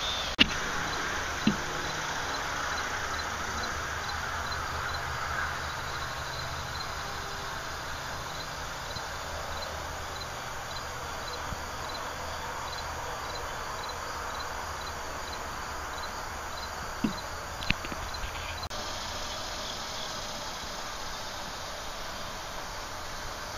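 A cricket chirping steadily about twice a second over a constant outdoor hiss; the chirping stops suddenly shortly before the end. A few sharp knocks from the hand-held camera being jostled stand out twice, near the start and about three-quarters through.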